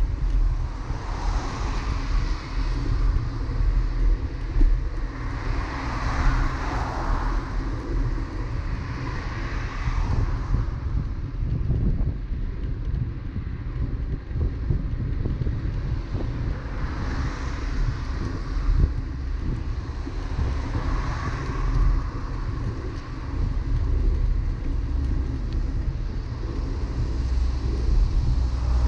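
Wind buffeting the microphone of a bicycle-mounted action camera as a steady low rumble, with motor traffic passing on the road alongside, swelling and fading several times.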